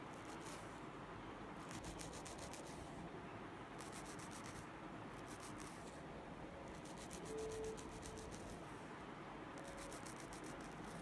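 Faint scratchy brushing strokes on hair, in short bursts a second or two apart: a mascara wand being brushed over the wig's hair at the parting to darken over-bleached knots.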